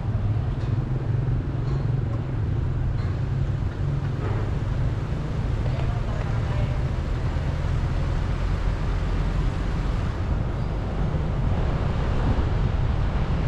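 Steady low rumble of wind and road noise picked up from a moving vehicle, with no distinct events.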